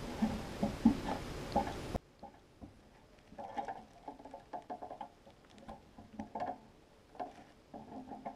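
Irregular rustling of camouflage clothing and small clicks and knocks of gear as a hunter shifts and stands up in a tree stand.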